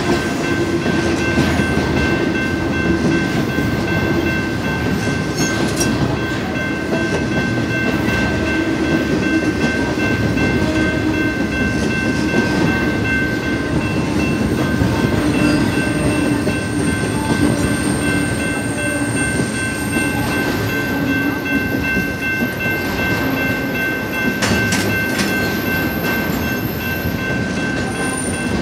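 Intermodal freight cars of a BNSF Z train, loaded with highway trailers and containers, rolling steadily past at a crossing: a continuous dense rumble with wheel clatter. A steady high ringing tone runs over it.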